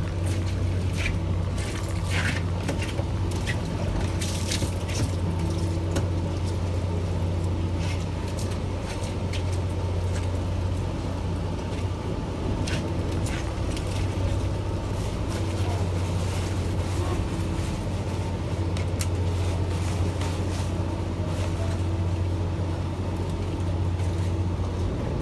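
Charter fishing boat's engine running steadily, a constant low hum, with scattered light clicks and knocks on deck.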